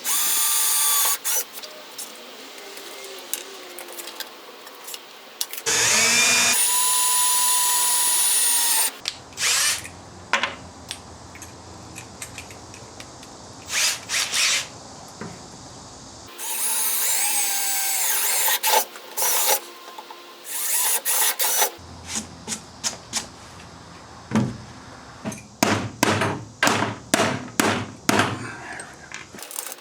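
Power drill running in bursts: two longer steady runs of a few seconds each, the second winding down in pitch, then a string of short, quick bursts near the end, as when driving screws.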